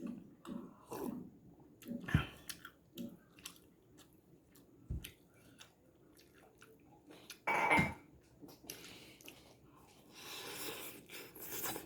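A person chewing a mouthful of mie goreng (Indonesian fried noodles) close to the microphone, with a few sharp knocks and one louder clatter about two-thirds of the way in.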